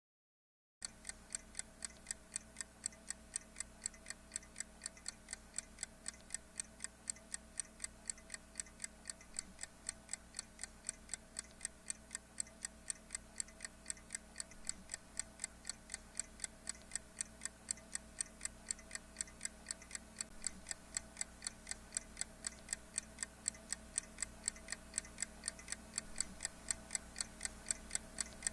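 Steady clock-like ticking, about three sharp ticks a second, starting just under a second in, over a faint steady hum.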